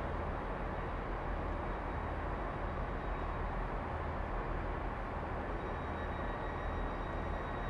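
Class 66 diesel locomotive running at low revs as it creeps slowly forward at the head of a rail head treatment train, with a diesel multiple unit idling alongside: a steady low rumble. A faint high whine comes in about five and a half seconds in.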